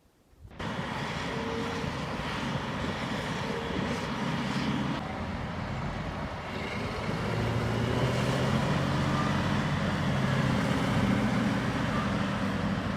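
Heavy log truck's diesel engine running, a steady engine noise with a low hum, getting a little louder about halfway through.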